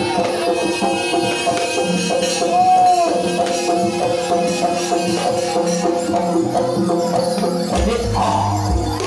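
Live jaranan music from a Javanese folk ensemble: held, reedy melody lines over drums and jingling percussion, with a short bend in pitch about three seconds in. A deep low note comes in near the end.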